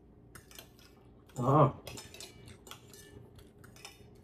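Spoon and fork clinking and scraping against a plate as food is scooped up, in scattered small clicks. About a second and a half in comes a short hum from a man's voice, the loudest sound.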